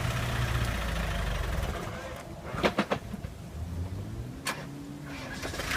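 Diesel 4x4 engine running steadily, fading out about two seconds in, with a few sharp clicks and knocks in the middle.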